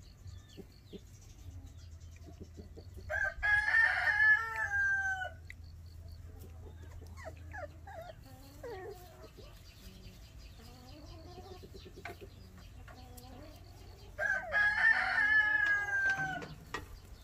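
A rooster crowing twice, each crow about two seconds long and falling away at the end, the first about three seconds in and the second near the end. Fainter short calls come in between.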